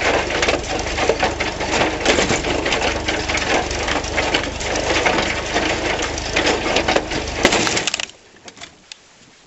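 Log splitter made from a John Deere 14T hay baler, run off a tractor's PTO, clattering rhythmically as its plunger drives, with wood cracking and splitting over the steady hum of the tractor engine. The noise cuts off suddenly about eight seconds in.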